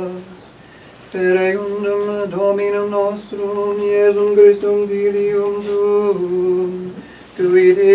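Unaccompanied male voices singing Latin plainchant, held mostly on one reciting note with small steps at phrase ends, with short pauses for breath about a second in and again near the end.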